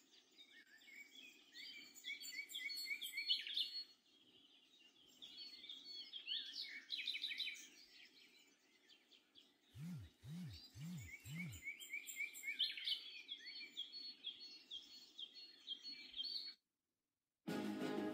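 Birdsong: spells of quick, repeated high chirping notes, with four low falling notes in a row about ten seconds in. The birds cut off near the end, and after a moment of silence music starts.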